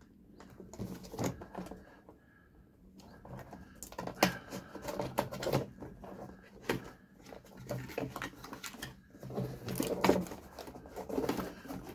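A small mail parcel being opened by hand: irregular rustling, crinkling and clicks of its packaging, sparse at first and busier from about three seconds in.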